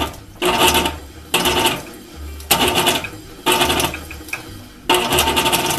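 South Bend 9-inch lathe turning the Swan beam drill's shaft, with a harsh rasping rub that comes back about once a second, six times. The shaft runs in a badly worn bearing and has a 50-thousandths hop.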